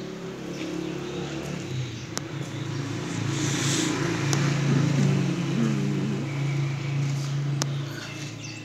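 A motor vehicle's engine running, growing louder over the first few seconds and fading again near the end, as a vehicle passing by does. A few faint clicks are heard over it.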